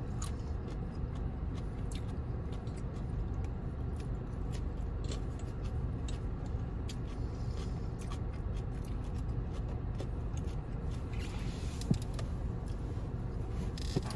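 Close-up chewing and mouth clicks of someone eating stir-fried vegetables, with small taps of wooden chopsticks, over a steady low hum. Near the end there is a brief rustle and scrape as the foam takeout container is shifted.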